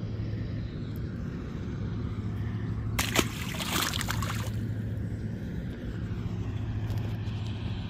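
A released fish splashes into the water once, about three seconds in, a short sharp splash. Under it runs the steady low drone of a boat's engine.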